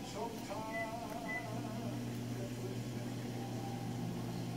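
Faint wavering tones at the start, then a steady low hum that sets in about a second and a half in and holds.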